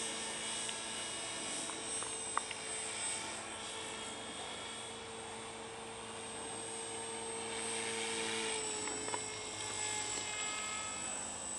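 HK450 electric RC helicopter in flight: the steady whine of its electric motor and rotor blades, its pitch shifting slightly lower about eight and a half seconds in.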